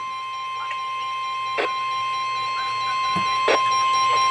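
NOAA Weather Radio Warning Alarm Tone: a single steady high-pitched beep held without a break and growing slightly louder. It is the attention signal that announces a tropical storm and hurricane warning about to be read out.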